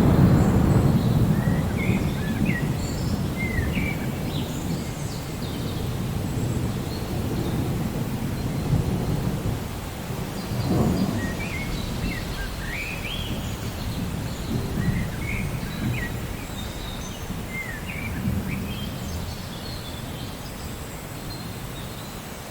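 Steady rain with low rolls of thunder, the loudest right at the start and another about eleven seconds in. Birds chirp on and off over it.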